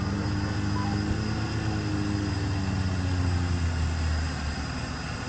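Off-road 4x4 vehicle's engine running at low revs, a steady deep drone with the pitch drifting gently up and down.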